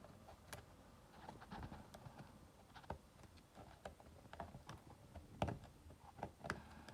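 Faint, irregular clicks and taps of hands and small tools working on an opened laptop's plastic and metal parts.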